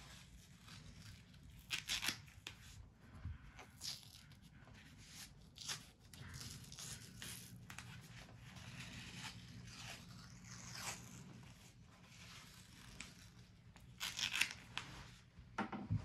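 White athletic tape being pulled off the roll and torn into strips, with hands smoothing it onto the ankle: a series of short, rasping rips, loudest about two seconds in and again near the end.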